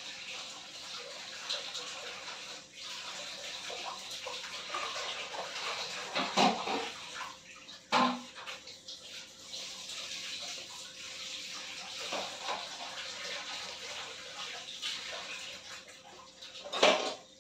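Steady hiss from a gas stove burner heating oil in a wok, with a few short knocks of kitchenware about six and eight seconds in and near the end.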